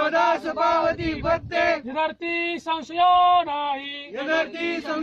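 A man's voice singing a devotional chant-like song, with notes that bend and are held for a second or so.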